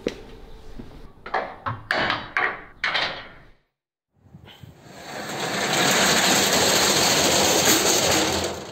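About six sharp knocks, spread over three seconds, each ringing briefly. After half a second of silence, a loud rushing noise swells up over about a second and holds steady, then stops near the end.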